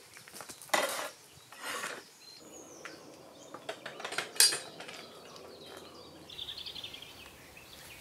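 Metal latch of a wooden field gate clanking and the gate knocking as it swings and shuts, a few sharp clinks about a second in, again near two seconds and around four seconds.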